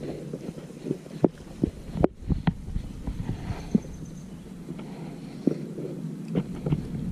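A low rumble with a few sharp, scattered knocks and thumps.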